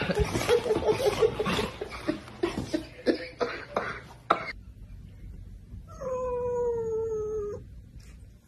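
A rapid, irregular run of slaps and claps as a person's hands meet the paws of a jumping dog. After a short pause, a calico cat gives one long meow of about a second and a half, falling slightly in pitch.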